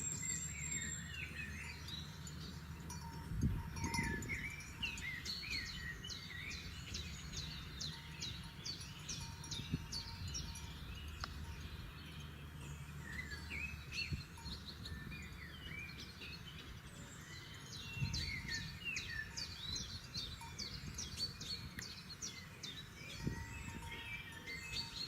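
Several forest songbirds singing and calling at once, a dense run of short chirps and whistles, over a steady low rumble of background noise.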